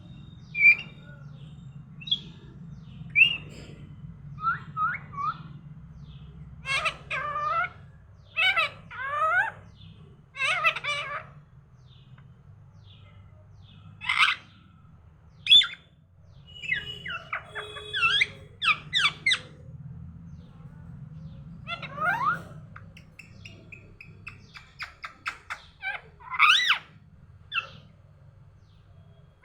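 Pet parrot calling: a long string of separate squawks, chirps and whistled notes, with a quick run of short repeated notes about two-thirds of the way through. A low steady hum runs underneath.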